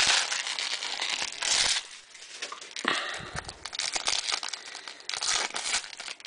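Foil trading-card pack wrapper crinkling and being torn open by hand, in several bursts of crackling rustle.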